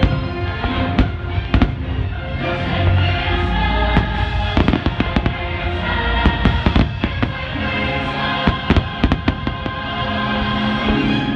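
Aerial fireworks shells bursting in quick, irregular bangs, over the show's Christmas music soundtrack.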